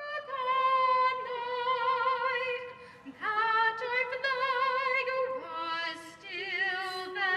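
A woman singing the national anthem solo and unaccompanied, holding a few long notes with vibrato.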